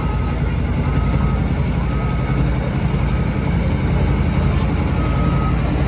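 Heavy diesel semi-truck engine idling with a steady low rumble, while a vehicle's backup alarm beeps about once a second on a single high tone.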